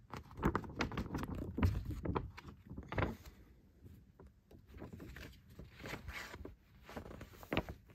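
Folded paper poster being unfolded and handled: irregular crinkling and rustling of paper, busiest in the first few seconds, with a few sharper crackles near the end.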